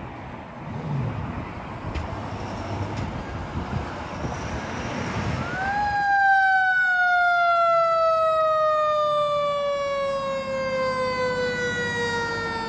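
Vehicle engine and street traffic noise, then about halfway through a fire engine's siren rises briefly and winds slowly down in pitch, falling steadily over about seven seconds.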